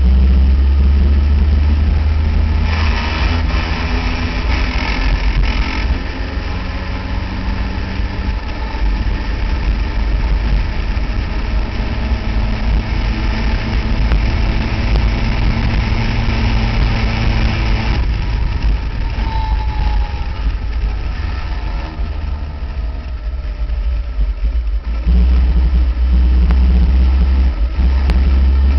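Onboard sound of an open-cockpit Caterham Seven-type racing car at speed: the engine running hard under the driver, with heavy wind rumble on the microphone. The sound eases a little about two-thirds of the way through and comes back louder near the end.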